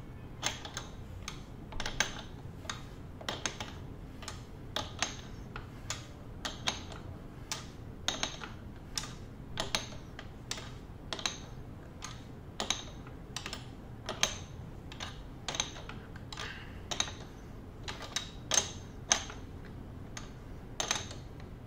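Open-end wrench on a bicycle pedal spindle, tightening the right pedal into the crank arm: a steady series of sharp metallic clicks, about three every two seconds.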